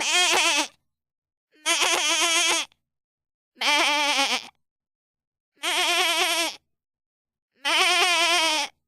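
A goat bleating loudly five times, each call about a second long with a quavering, wavering pitch, with complete silence between the calls.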